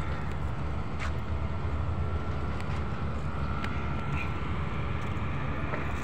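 Steady low outdoor rumble, even throughout, with no clear single event in it.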